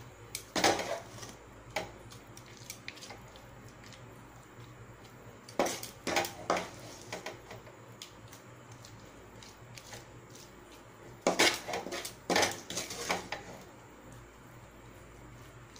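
Wooden spatula scraping and tapping against a steel plate in several short bouts, spreading and pressing down a crumbly coconut-and-sugar-syrup burfi mixture.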